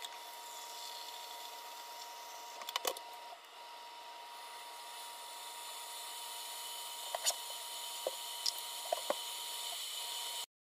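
Sweet chilli relish of apple, onion, chilli, sugar and vinegar simmering in a large stainless steel pot as it reduces toward a syrup: a soft steady hiss with scattered small pops from bubbles bursting.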